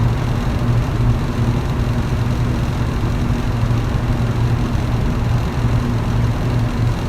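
Electric fan running steadily: a low, even motor hum under the rushing of moving air.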